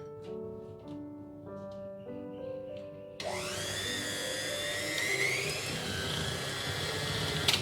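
Soft piano music, then about three seconds in an electric mixer switches on: a steady motor whine that rises in pitch as it spins up and holds, beating the cream cheese, yogurt and whipping cream filling, until it cuts off at the end.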